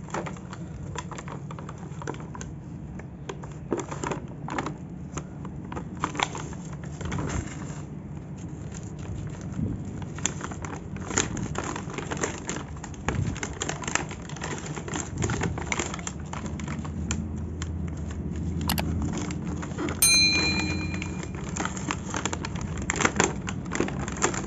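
Plastic blister packaging and cardboard backing of a toy set being handled and torn open by hand: irregular crinkling, rustling and clicks, over a low steady hum. About twenty seconds in, one sharp loud click with a brief ringing tone.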